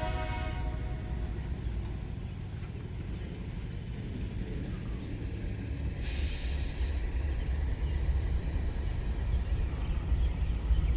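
Low rumble of a passing BNSF track-geometry train, growing slowly louder, with the last echo of its horn dying away at the start and a brief hiss about six seconds in.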